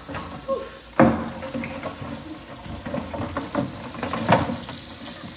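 Tap water running into a stainless steel sink while live crabs are handled and washed in it, with the knocks and clatter of their shells and claws against the steel; a sharp knock about a second in and another about four seconds in.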